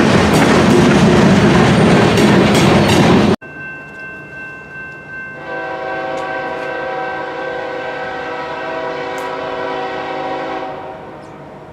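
A train passing close by with loud, steady rail and wheel noise, which cuts off abruptly about three seconds in. After the cut, a locomotive horn sounds one long chord of several notes for about five seconds, then fades.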